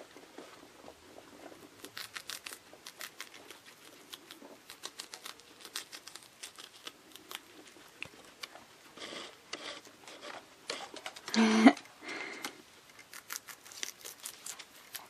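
Guinea pigs scuffling and moving about, with many quick small clicks and light rustling. About eleven seconds in comes one brief, loud squeak.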